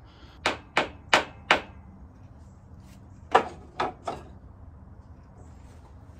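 Sharp wooden knocks as small pieces of scrap wood are handled and set down: four in quick succession about half a second in, then three more around three seconds in, the first of those the loudest.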